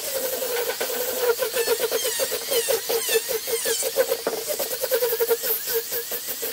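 Angle grinder with a sanding disc running against a carved pine table leg, its motor whine pulsing rapidly as the disc bites into the wood. High warbling squeals come and go over it.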